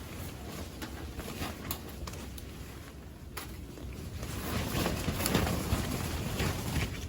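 Strong wind gusting, with a low rumble that swells to its loudest about five seconds in, and scattered light clicks and knocks.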